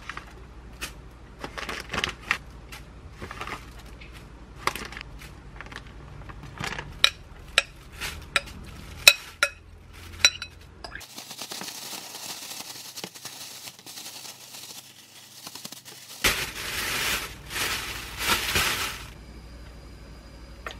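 A metal spoon clicking and tapping as almond flour is scooped from a plastic bag into another, then loud plastic-bag crinkling for about three seconds as chicken tenderloins are tossed in the flour to coat them.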